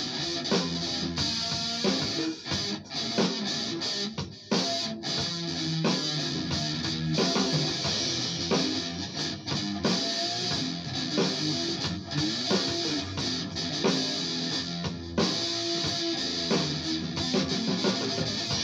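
Electric guitar being played, a continuous run of picked notes and chords.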